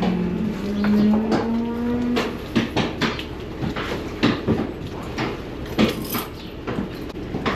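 A dairy cow mooing once at the start, a call of about two seconds that rises slightly in pitch, among scattered sharp knocks and clatter.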